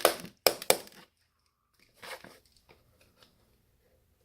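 Plastic housing of a wireless access point being handled and pried apart with its screws out: three sharp clacks in the first second, then a brief rasp about two seconds in and a few faint ticks.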